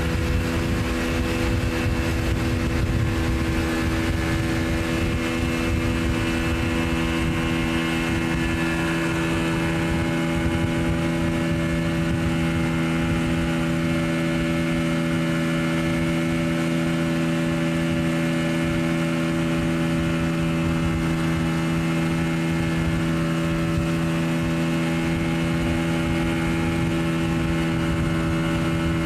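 Outboard motor of a small open boat running at a steady cruising speed, heard from aboard the boat: a constant drone whose pitch holds level throughout.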